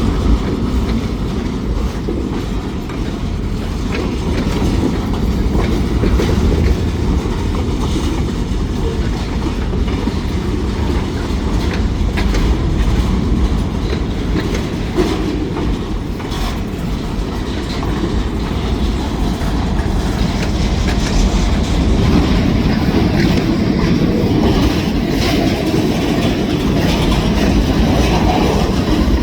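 Freight train rolling by: a steady rumble with the rhythmic clickety-clack of steel wheels over the rail joints.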